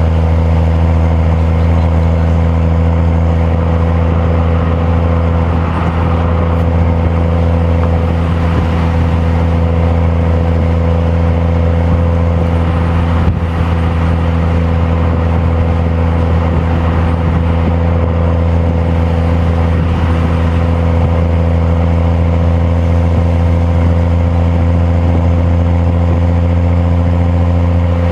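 BMW M235i's N55 turbocharged inline-six running at a steady engine speed, an even low drone heard from inside the cabin while cruising.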